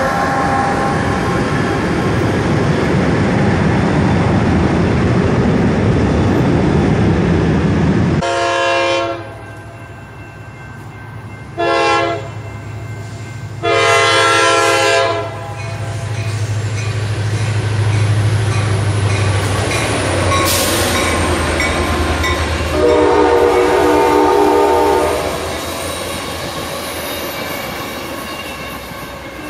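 Coaster commuter train's diesel locomotive passing close with a loud rumble and its horn chord sounding. Then a diesel locomotive horn blows four separate blasts, a long one, a short one, another long one and, after a pause, a longer one, over the low drone of the engine, with coaches rolling past near the end.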